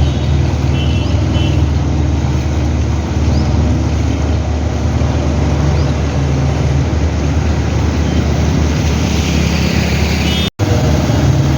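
A motor vehicle's engine running steadily amid traffic noise, cutting out for a moment near the end.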